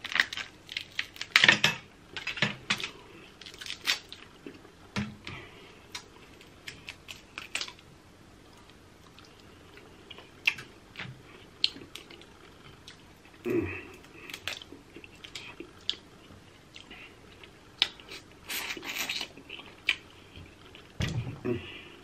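Snow crab shells cracking and snapping under the hands and teeth, with close-up chewing of the crab meat: irregular sharp cracks and clicks, and a few longer crunching stretches, the loudest about a second and a half in and again around 13 and 19 seconds.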